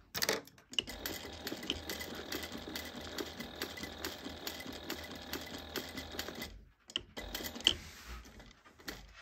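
Industrial sewing machine stitching a pre-stitch through a bag's fabric and binding, a rapid steady run of needle strokes. It stops briefly about two-thirds of the way through, then runs again in shorter spurts as the curve is turned.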